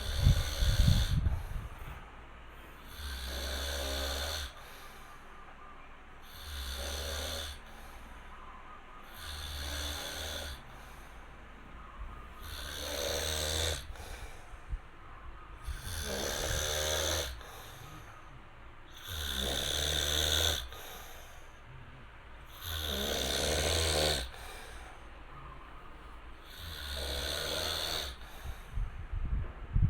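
A man snoring in deep sleep, a snore about every three and a half seconds, eight in all. A louder low rumble comes in the first second.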